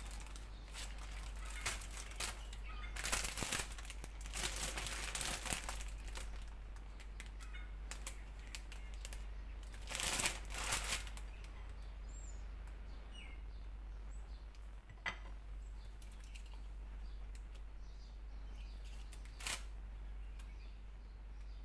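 Thin plastic bags crinkling in bursts as they are handled, loudest a few seconds in and again about halfway, followed by a couple of light knocks.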